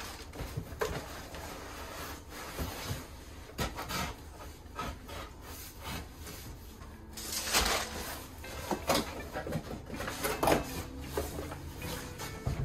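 Cardboard boxes sliding and scraping against each other and against the sides of a large shipping box as they are lifted out, with irregular rustles and light knocks. The scraping is loudest a little past the middle.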